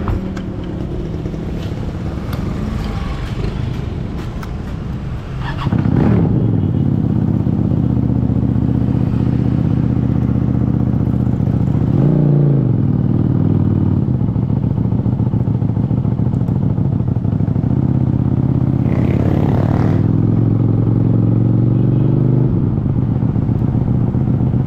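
QJMotor SRV400 V-twin engine running under way. Its note rises and grows louder about five seconds in, then holds a steady beat, with a brief dip and recovery in pitch about twelve seconds in.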